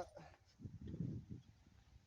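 A dog growling low for about a second in the middle, during rough play.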